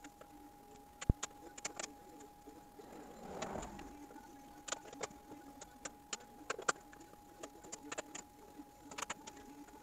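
Irregular sharp clicks and snaps of plastic and metal parts being handled and unfastened at the top of a pickup's grille and radiator support, the loudest click about a second in and a brief rustle a few seconds later, over a faint steady hum.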